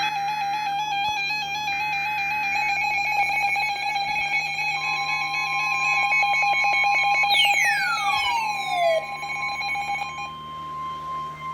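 Emergency alert tones for a Special Marine Warning: a warbling electronic alarm that steps up and down in pitch, with two short bursts of buzzing data tones over it at the start. About five seconds in a steady higher beep joins, and falling whistle sweeps come in near eight seconds. The alarm drops away shortly before the end.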